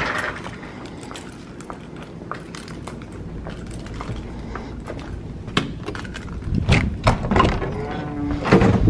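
Footsteps and camera handling noise while walking, then a cluster of clunks and knocks in the last few seconds as a wooden door is opened and passed through.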